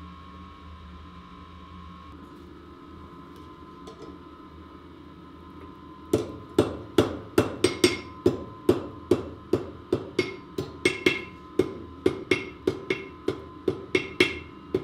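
Blacksmith's hand hammer striking hot iron on an anvil. A low steady hum runs for about six seconds, then quick, regular blows begin, about three a second, each with a short bright ring from the anvil.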